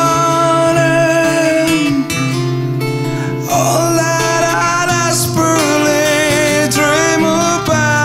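Two acoustic guitars playing together, one strummed and one picked, with a man singing a slow melody with long held notes.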